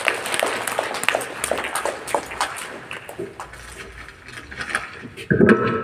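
Assembled schoolchildren clapping after a speech: dense clapping that thins out over about three seconds, with a short bit of voice near the end.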